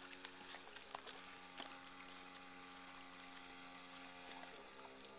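Faint, steady whine of a remote control boat's small electric motor, stepping in pitch a few times. It is the sound of the boat's battery running down.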